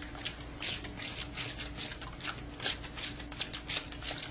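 Hand-pump spray bottle misting water onto a section of hair: a quick run of short, loud squirts, several a second, to wet the hair before cutting.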